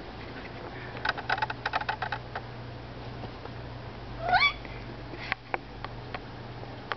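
A cat playing with a rubber band: a flurry of quick light clicks and taps about a second in, then one short rising chirp a little past halfway, over a steady low hum.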